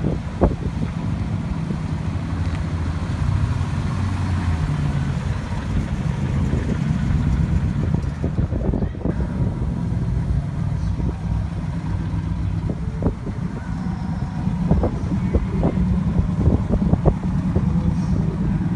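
Engine of a mid-1950s Ford Fairlane running steadily at low speed as the car rolls slowly by. A few short knocks sound over it.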